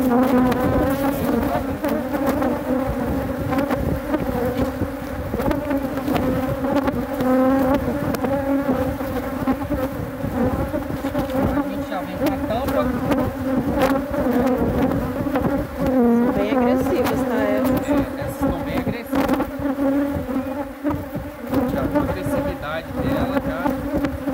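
A mass of honeybees buzzing loudly around an opened wooden hive box: a steady, slightly wavering drone, with a few light knocks.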